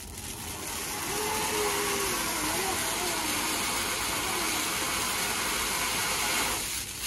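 Firecracker fountain (a "shower" flower-pot cracker) spraying sparks: a steady hiss that builds over the first second, then cuts off near the end as it burns out.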